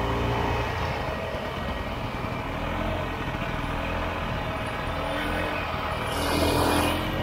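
Single-cylinder two-stroke engine of a 1967 Ski-Doo Olympique snowmobile running as the sled is ridden, revving up about six seconds in.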